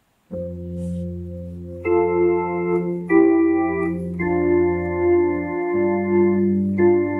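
Electronic keyboard improvising slow held chords over a low bass note. The notes sustain without fading, and the chord changes every second or so, with the upper notes filling in about two seconds in.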